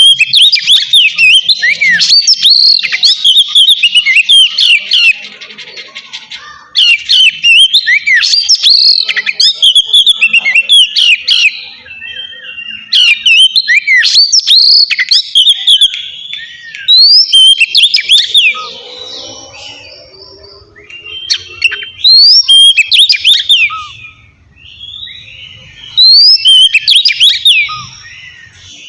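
Oriental magpie-robin singing its loud, clear whistled 'ngeplong' song: quick gliding phrases in bursts of a few seconds, broken by short pauses.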